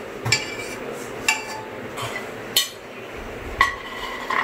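A few sharp metallic clinks, roughly a second apart, each with a short ring: a utensil knocking against the pressure cooker pot and dishes.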